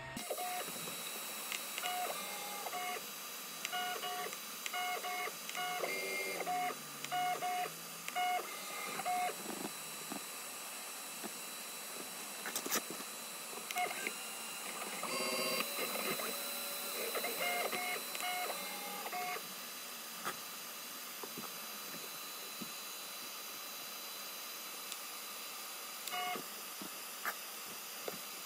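Easythreed K9 3D printer's stepper motors running in a string of short jogs, each a brief steady tone at one of a few pitches. The jogs come in two busy runs of several seconds, with a couple of single short moves near the end. The axes are being driven back and forth during bed leveling.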